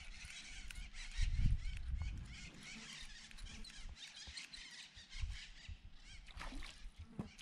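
Birds chirping and calling without a break, many small quick chirps, with a lower, falling call about six and a half seconds in. A few low thumps, from handling or wind on the microphone, come through, the strongest just over a second in.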